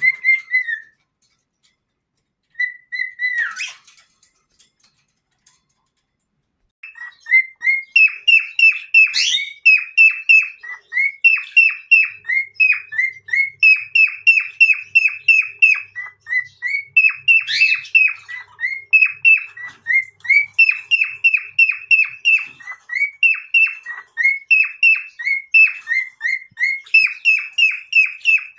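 Cockatiel giving two short whistles, then after a pause a long run of quick, repeated chirps, several a second.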